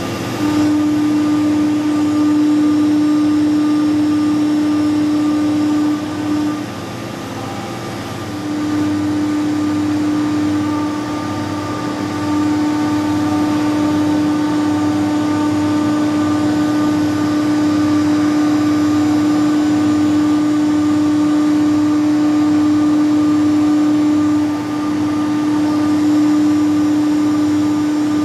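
Doosan VCF 850LSR machining centre's spindle running and milling: a loud, steady whine. It breaks off about six seconds in and comes back about two seconds later.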